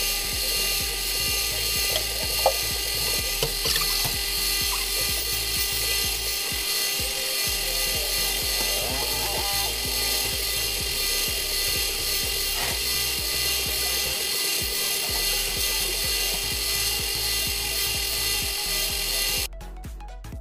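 Bench grinder running with a steel blade, cut from a used band saw blade, held against its wheel: a steady grinding hiss over a steady hum, which cuts off suddenly near the end.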